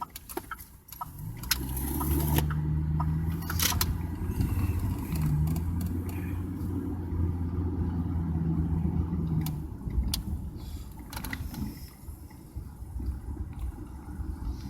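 Car engine running with a steady low hum that starts about a second in and drops away after about eight seconds, with a few sharp clicks in the first four seconds.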